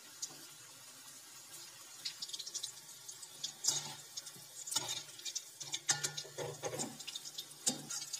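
Batter-coated chicken pieces sizzling and crackling in hot oil over a low gas flame. From about three and a half seconds in, a perforated metal skimmer stirs them, clinking and scraping against the metal kadhai.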